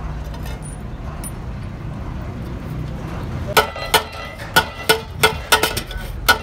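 A low, steady rumble, then from about halfway a quick series of sharp, ringing metallic clangs. These are a hammer striking a steel truck wheel rim, around eight blows in under three seconds.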